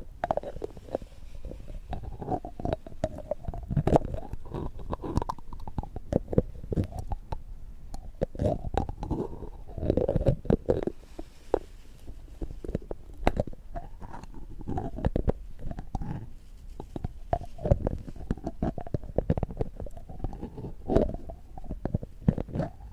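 Close-miked wet, gurgling and squelching sounds with many small clicks, going on without a break.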